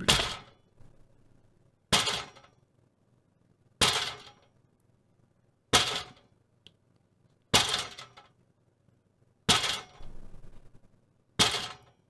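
Recorded impact sound-effect takes, normalized and played back one after another: seven sharp hits about two seconds apart, each dying away within a second. The hit near the end has a longer, uneven tail.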